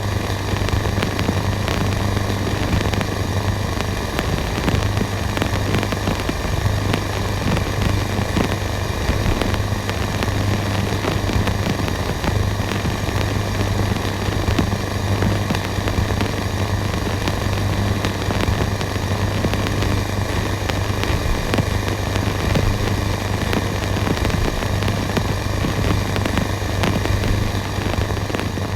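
Old radio static: a steady hiss thick with fine crackling, over a low steady hum.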